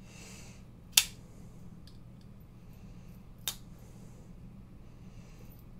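Maxace Red Queen II folding knife's blade being worked open and shut after reassembly, each stroke ending in a sharp metallic click: a loud one about a second in and a fainter one past three seconds.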